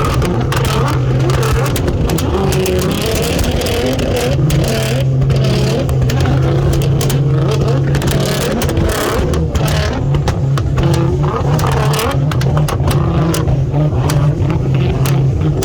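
Nissan GT-R R35's twin-turbo V6 running with a steady low drone whose pitch wavers slightly, punctuated by frequent short clicks.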